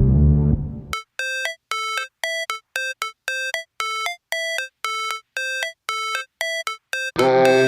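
Music: a simple melody of short, bright electronic notes, about three a second with silence between them, like a ringtone. Fuller, denser music comes back in near the end.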